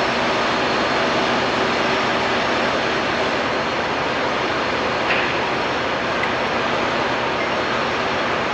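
Steady, loud machine noise, an even rushing drone with no rise or fall, with one small click about five seconds in.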